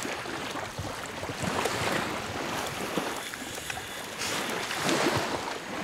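Surf washing on the beach with wind on the microphone: a steady rushing noise.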